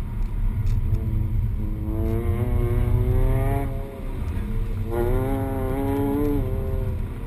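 Peugeot 208 GTi's 1.6 turbo four-cylinder heard from inside the cabin under hard acceleration, its pitch climbing, dropping briefly about four seconds in as the throttle is lifted, then climbing again before easing near the end, over a steady low road rumble.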